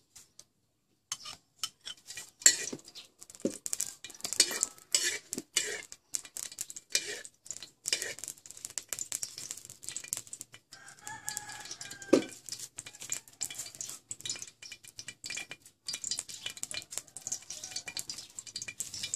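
A metal ladle scrapes and clinks against a metal wok as oil is worked around the heating pan, with one loud knock at about twelve seconds. A rooster crows once just before the knock.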